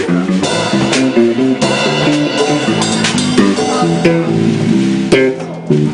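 Band music led by a bass guitar playing a moving line of separate notes, with guitar above it and sharp percussive hits here and there.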